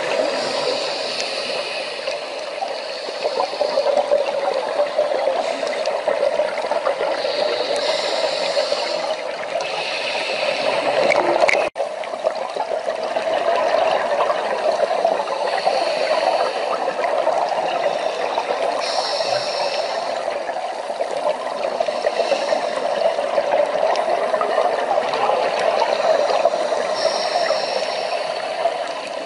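Steady underwater rushing and gurgling picked up by a camera below the surface, with short higher hissing spells coming and going. The sound cuts out for an instant just before the middle.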